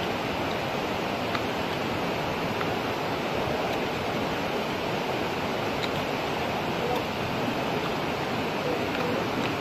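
Steady rushing noise at an even level, with a few faint clicks.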